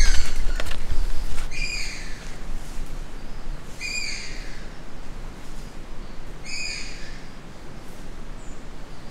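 A bird calling: a short, high note repeated four times, a couple of seconds apart. Footsteps and rustling on the forest floor are heard in the first second or so.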